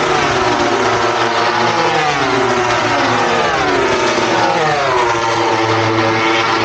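MotoGP racing motorcycle engine revving hard and changing pitch with the gear changes. The pitch falls twice and climbs again before settling high near the end.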